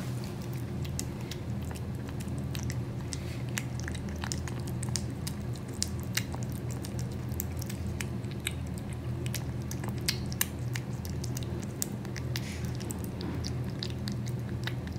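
Kitten eating wet cat food from a ceramic bowl: quick, wet chewing and smacking clicks, over a steady low hum.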